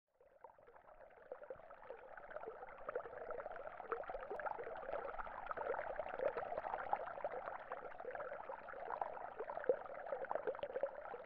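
Water splashing and trickling, fading in over the first couple of seconds and then holding steady, full of small crackling splashes.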